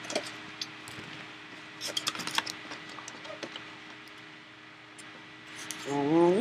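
Trading cards and their plastic packaging being handled: scattered light clicks and crinkles, with a quick cluster of ticks about two seconds in. A person's voice starts, wordless, near the end.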